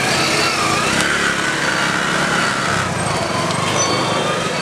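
A small engine running steadily with a slightly wavering pitch, over continuous street noise.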